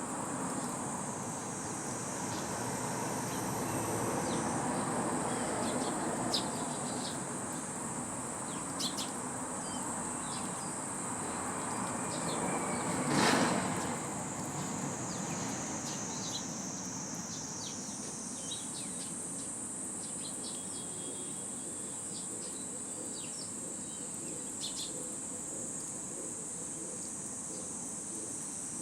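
A steady high-pitched insect drone, with short sparrow chirps scattered throughout and a brief rushing burst about halfway through.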